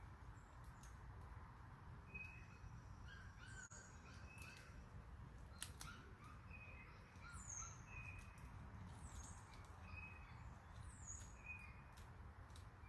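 Quiet woodland ambience: faint birds calling over and over, with a low steady rumble and a few faint clicks.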